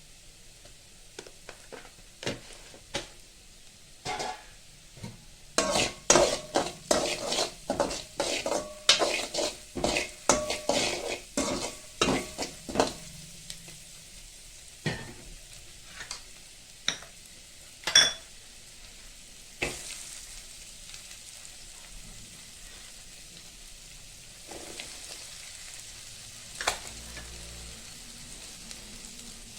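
Food sizzling in a pan while a metal utensil stirs and clinks against it, with a quick run of clinks from about six to thirteen seconds in, then only a few scattered ones over the steady sizzle.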